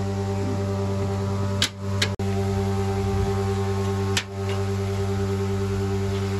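A steady deep hum made of several unchanging tones, briefly dipping about two seconds in and again about four seconds in.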